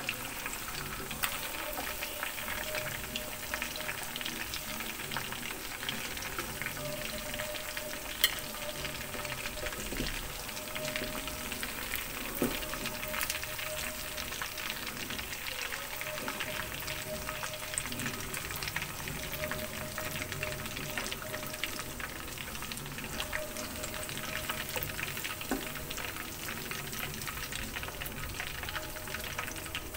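Fish pieces deep-frying in hot oil in a black iron kadai: a steady sizzle and crackle of bubbling oil, with a few sharp clicks scattered through it.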